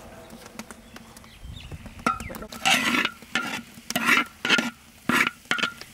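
Metal spatula scraping across a large wok in repeated strokes, about two a second, stirring chopped garlic and paste as they fry. The strokes start about two seconds in, each with a faint metallic ring.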